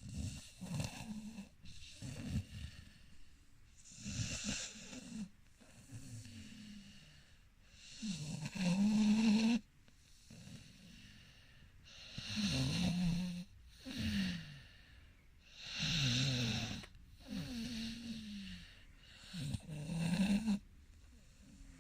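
Snoring, one snore every second or two, each a rough rattling breath with a wavering pitch. Some snores are short and others longer, with the loudest near the middle.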